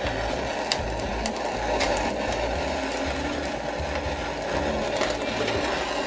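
Handheld blowtorch flame hissing steadily as it is played into a small metal saucepan holding an egg, with a few faint clicks.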